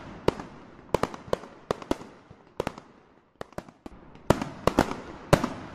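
Fireworks bursting: a series of separate sharp bangs at irregular intervals, each trailing off briefly. The bangs thin to a few small pops in the middle, then come back louder and closer together near the end.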